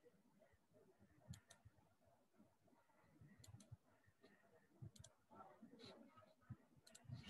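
Near silence: room tone with faint clicks, a single click or a quick pair about every two seconds.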